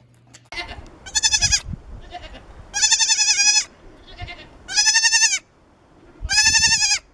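A young goat bleating: four loud, high, quavering bleats about one to two seconds apart, each lasting about half a second to a second, with a couple of fainter short bleats between them.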